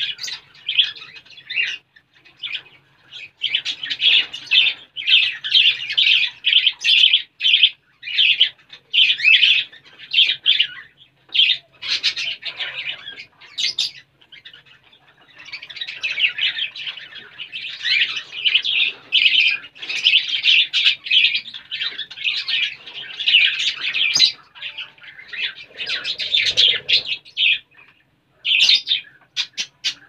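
Budgerigars chattering and warbling in fast runs of chirps, with a few short pauses between bouts.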